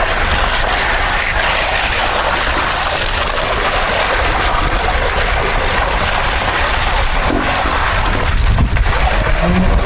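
Steady rushing noise with a low rumble underneath: machinery running during a concrete pour, with wind on the microphone.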